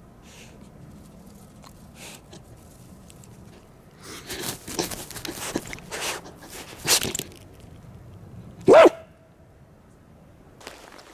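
A dog barks once, a short bark about nine seconds in that is the loudest sound. Before it come a few seconds of close rustling and scuffling.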